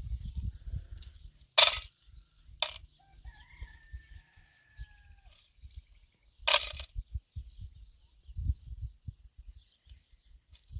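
Handling at a small metal tin: three sharp clinks, the loudest about one and a half seconds in, others near three and six and a half seconds, with soft rustling and thumps between. A rooster crows faintly in the distance in the middle.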